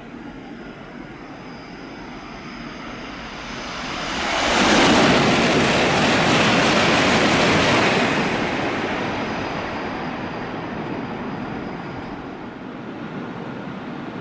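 Shinkansen bullet train passing through the station at high speed without stopping: a rushing roar that swells over a few seconds, stays loud for about four seconds, then slowly fades.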